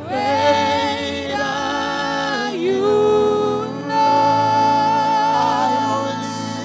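Gospel worship music: a voice singing long held notes with vibrato and pitch glides over steady instrumental backing.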